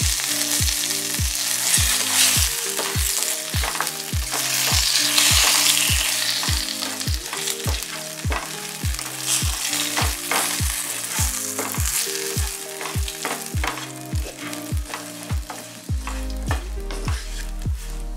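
Grated coconut, cumin seeds and fresh curry leaves sizzling in hot ghee and coconut oil in a frying pan while a spatula stirs them, the sizzle loudest in the first half. Background music with a steady deep drum beat runs underneath.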